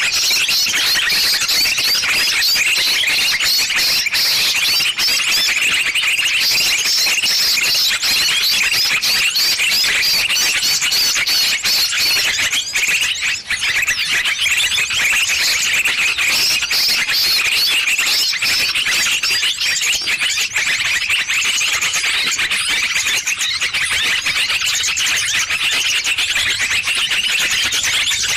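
A dense, continuous chorus of many small birds chirping and calling over one another, high-pitched and busy: a small-bird lure recording of the kind played to draw birds in for trapping.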